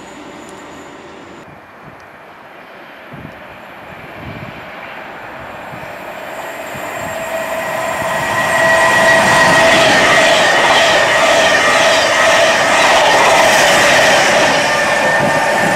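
Class 390 Pendolino electric express train approaching and passing close by at speed. The sound builds from about six seconds in to a loud, steady rush of wheels and carriages as the coaches go by, with a steady ringing hum riding on top.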